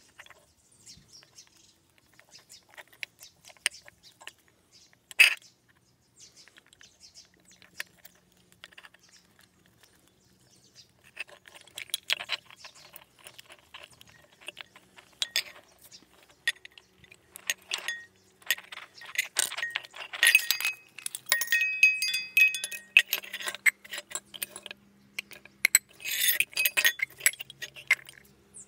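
Small metal clicks and clinks as wire is twisted through the holes of a bell's metal hub and the metal bell parts are handled. Sparse at first, much busier about eleven seconds in, with brief metallic ringing as the bells knock together.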